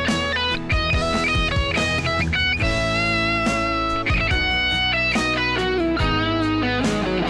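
Background music: an instrumental stretch of a pop song, without singing, over steady bass notes.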